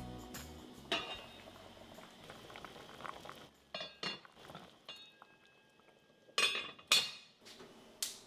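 A lid is lifted off an enamel pot of boiling chicken broth with a clink, and the water bubbles softly underneath. A few sharp metal clinks follow near the middle, then two loud clanks of the pot, lid or tongs being handled about two-thirds of the way through.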